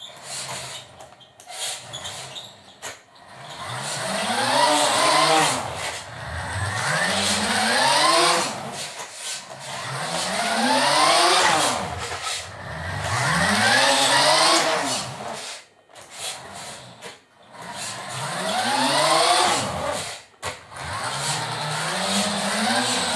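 Vintage Taiyo Jet Fighter RC buggy's electric motor and gears whining as it drives back and forth, the pitch rising and then falling on each of about six passes, with short quieter lulls between them.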